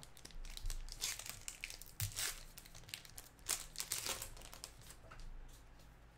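Wrapper of a 2020 Topps Heritage baseball card pack crinkling and tearing as gloved hands handle and open it: a run of short crackly rustles that thin out near the end.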